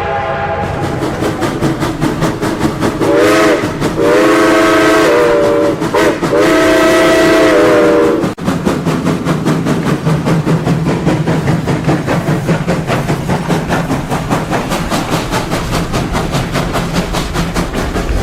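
A passing train sounds its horn in several chord-like blasts, two of them long, over the noise of the moving train. About eight seconds in, that gives way to a fast, even clickety-clack of steel wheels over the rail joints with a low rumble.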